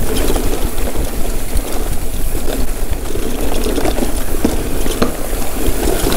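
Steady rushing and rattling of an electric mountain bike ridden down a dirt trail: tyres rolling over dirt and rocks, with scattered short knocks from the bike.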